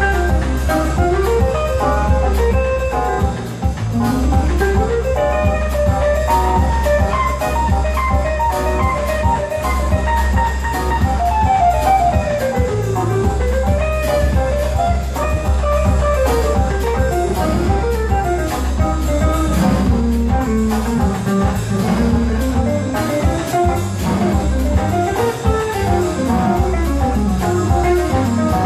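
Live band of oud, guitar, violin, keyboard, bass and drum kit playing an instrumental jazz-fusion arrangement of an Arabic folk tune. A fast plucked-string melody runs up and down over a steady bass line and drums.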